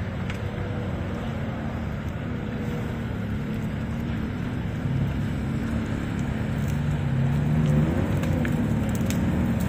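Off-road vehicle's engine running, its revs and loudness rising somewhat in the second half.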